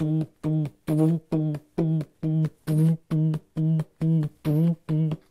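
A man's voice making a rhythmic vocal beat on one low pitch, short 'bum'-like syllables at about three a second, like a mouth-made drum rhythm for a wild rumpus.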